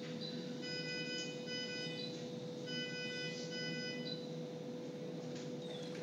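Electronic beeping: two pairs of steady-pitched beeps, each beep about half a second long, over a constant hum.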